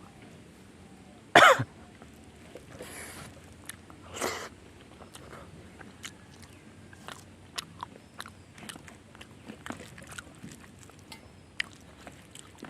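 A person eating coughs loudly once about a second and a half in, with a second, softer cough or throat-clearing near four seconds; after that come many small clicks and smacks of chewing.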